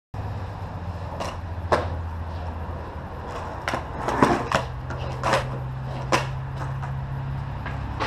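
Skateboard rolling over a concrete driveway: a steady low rumble broken by a handful of sharp clacks and knocks.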